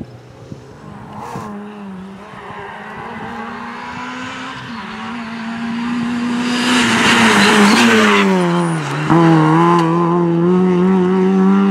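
Rally car engine running at high revs as the car passes close, with a loud burst of noise about seven seconds in. Near nine seconds the revs drop sharply, then climb again as the car pulls away.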